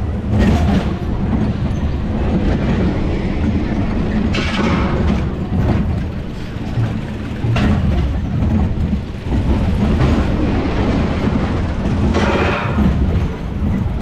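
Roller coaster car rolling along its steel track, a steady low rumble of wheels on rail with a few louder clatters.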